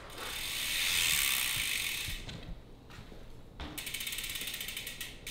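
Mountain bike's rear freehub ticking as the wheel turns freely: a rush of noise that swells and fades over the first two seconds, then a fast, even ratchet ticking of the hub's pawls from a bit past halfway.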